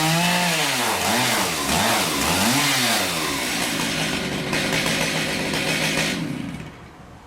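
Chainsaw on an Alaskan sawmill running at steady high revs, then the throttle eases off and the revs swing down and up several times before settling into a steady lower run. The engine sound falls away sharply about six and a half seconds in.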